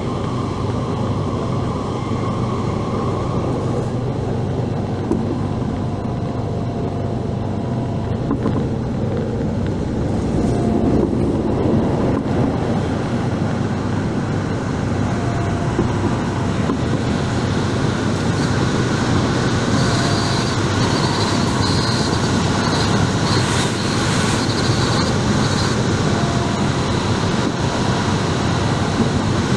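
Running noise of an MTR Tung Chung Line K-Train electric multiple unit at speed: a steady sound of wheels on rail that grows a little louder and brighter partway through, with a high whine that comes and goes in the last third.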